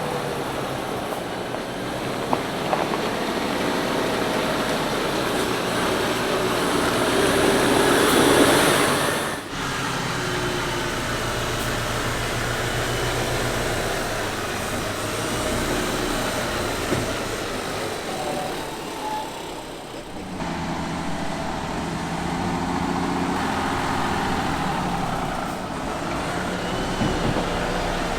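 Mercedes-Benz Arocs truck's diesel engine running under way off-road, swelling louder about a third of the way in. The sound then breaks off abruptly and changes character twice, as at a cut between shots.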